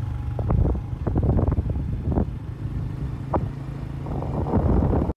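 A motor vehicle engine running with a steady low hum, with irregular clicks and knocks over it.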